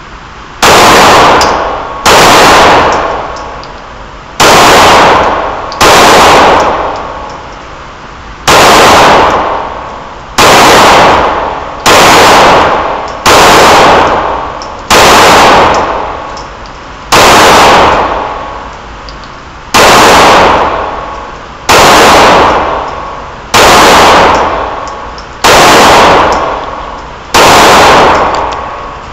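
Glock 17 9mm pistol fired in slow, uneven succession: about fifteen single shots, one every one and a half to three seconds, each very loud with an echo that dies away over about a second.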